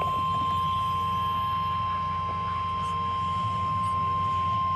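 NOAA Weather Radio warning alarm tone: a single steady, high-pitched 1050 Hz tone held without a break over a low hum, the signal that a warning message is about to be broadcast.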